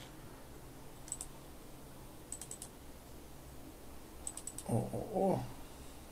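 Computer mouse clicking in quick clusters of a few clicks each, about a second in, around two and a half seconds, and just past four seconds: double-clicks opening folders in a file-save dialog. A short wordless murmur from a man's voice just after the last cluster.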